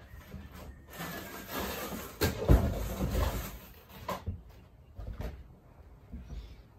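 Knocks and clunks of a window sash being handled and lifted out of its frame, the loudest clunk about two and a half seconds in, with a couple of lighter knocks after it.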